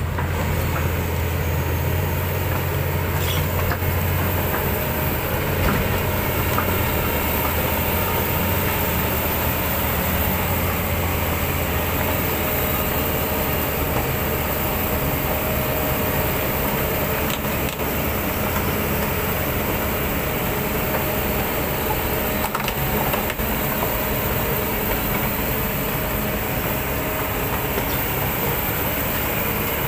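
Kobelco 200-class crawler excavator's diesel engine running steadily as the machine travels on its steel tracks, with a continuous rumble and rattle of the tracks.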